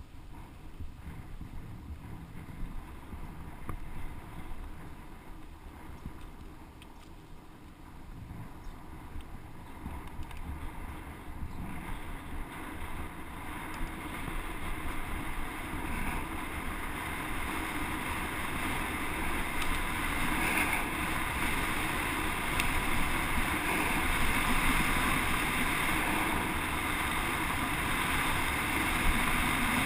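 Wind rushing over a helmet-mounted camera's microphone while riding downhill on a paved path, with a rolling rumble underneath, growing steadily louder over the second half as speed builds.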